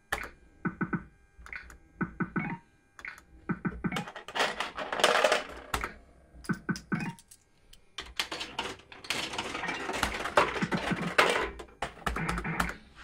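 Bully for You fruit machine clicking and clacking: scattered sharp clicks in clusters, with two longer stretches of dense rattling clatter, about four seconds in and again from about eight seconds in.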